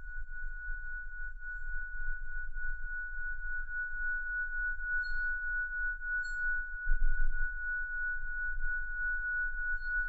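Tibetan singing bowl sung by rubbing around its rim, giving one steady high ringing tone that wavers slightly.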